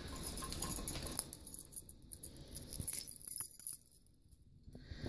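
Light metallic jingling and clicking of the tags and clips on a dog's service vest and collar as he shifts about, in two short spells with a quiet gap near the end.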